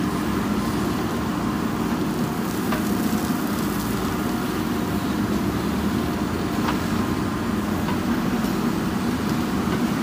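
JCB 3DX backhoe loader's diesel engine running steadily under load while the backhoe arm digs and swings soil, with a couple of brief light clicks.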